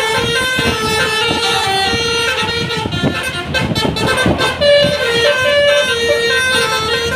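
Bus 'telolet basuri' musical air horn playing a tune in short held notes that step up and down. About three seconds in the tune drops out for a second or so under a rush of vehicle and road noise, then starts again.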